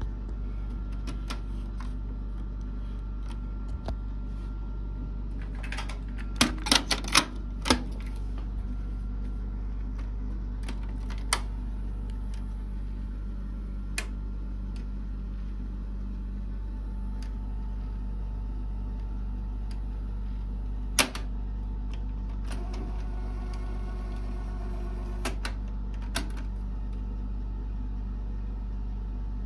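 Technics RS-D190W dual cassette deck's transport buttons and mechanism clicking and clunking: a quick run of about six sharp clicks a few seconds in, then single clicks every few seconds, over a steady low hum.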